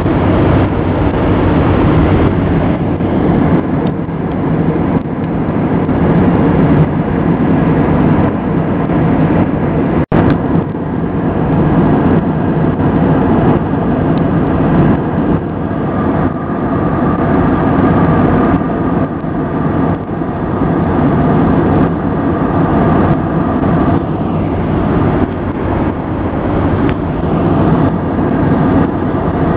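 Steady drone of an Airbus A320's engines and airflow heard inside the passenger cabin in flight, with a momentary break in the sound about ten seconds in.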